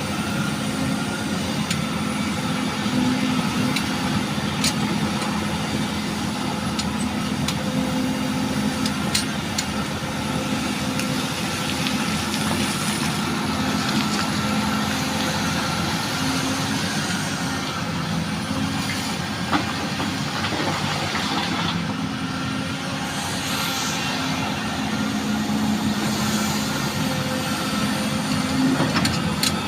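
Excavator's diesel engine running steadily under load while loading, its hum swelling slightly now and then, with a few short sharp knocks.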